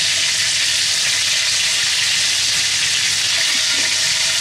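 Egg-and-seasoning-coated chicken pieces frying in hot oil in a pan, giving a loud, steady sizzle.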